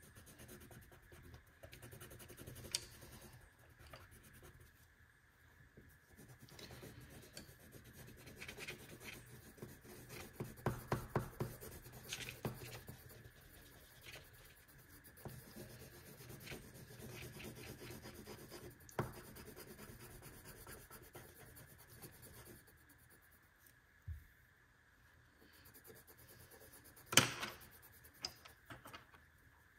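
A marker tip scratching and rubbing across marker paper in repeated coloring strokes, with a few sharp clicks and one louder click near the end.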